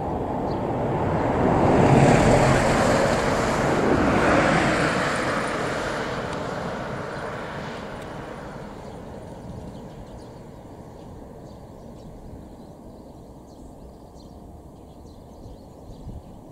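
A vehicle passing close by, swelling to its loudest about two to four seconds in and then fading away over several seconds to a low steady background.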